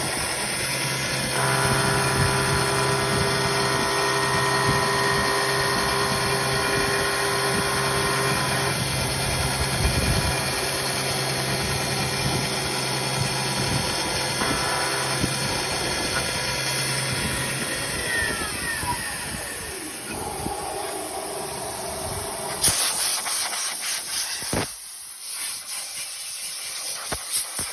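CNC milling machine running with a steady machine whine, which falls away in pitch after about eighteen seconds as the spindle slows. Hissing spray bursts follow near the end.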